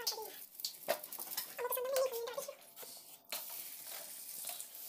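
A spoon scraping and tapping on a flat griddle (tawa) while ghee is spread over a paratha, with a light sizzle of the frying bread and a few sharp clicks of metal on metal.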